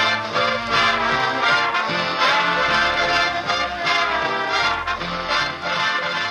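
Instrumental soundtrack music with several instruments playing together over a steady beat.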